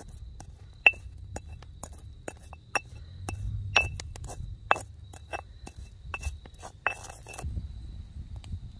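Stone pestle striking and grinding dried juniper, cedar and spicebush berries in a stone mortar: irregular sharp clinks, about two or three a second, that stop about seven and a half seconds in.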